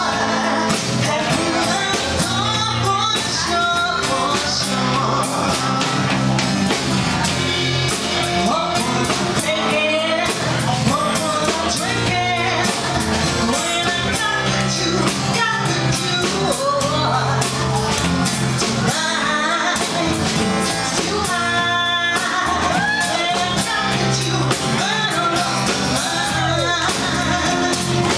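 Live band playing: a woman singing over electric guitar, drums and tenor saxophone.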